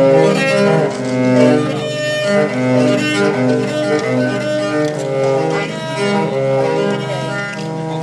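Viola music: slow bowed notes held and changing smoothly, several pitches sounding at once over a low held line.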